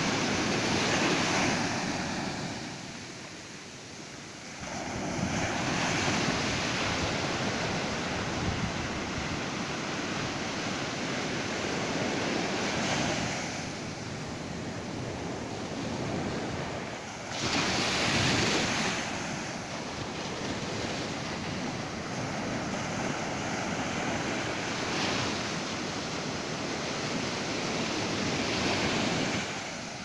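Ocean surf on a sandy beach: small waves breaking and washing up the shore in a continuous rushing hiss that swells and ebbs every few seconds as each wave comes in.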